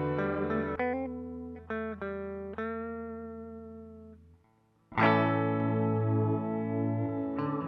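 Electric guitar played through an Old Blood Noise Endeavors Sunlight dynamic reverb pedal. A ringing chord fades, a few single notes are picked about a second in and die away almost to silence, then a new chord is struck just before five seconds in and rings on.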